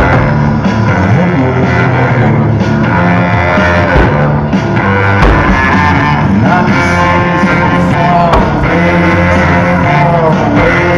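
Music: a rock song with guitar and a singing voice, playing loudly and steadily.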